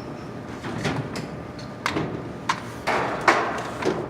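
Several sharp clicks and knocks, about five in the last two and a half seconds, from parts being handled during work on a furnace.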